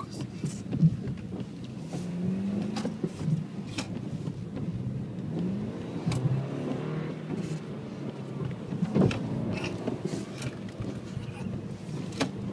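Car engine heard from inside the cabin, its revs rising and falling as the car accelerates and eases off around a cone course, with a few sharp clicks and knocks on top.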